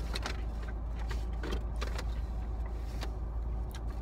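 Close-up eating sounds: a handful of short clicks and crinkles from chewing and handling the food, over a steady low hum.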